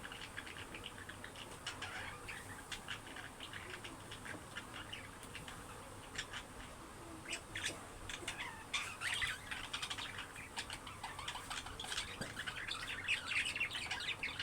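Budgerigar chatter: a dense stream of short, high chirps and squawks that grows busier and louder about nine seconds in.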